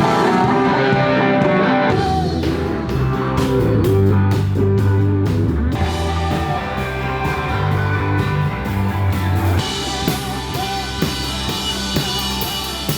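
A country band playing a song with electric guitar, bass and drum kit. The band comes in at full volume at once, the drum hits start about two seconds in, and the cymbals get busier after about ten seconds.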